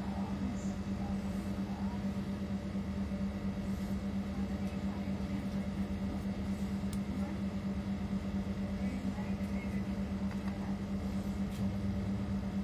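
A steady low machine hum with a fast, even flutter.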